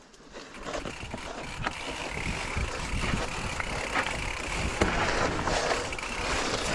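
Mountain bike rolling down a rough, wet trail: tyre noise on dirt and rock with many rattling clicks from the bike. It grows louder over the first few seconds, then holds steady.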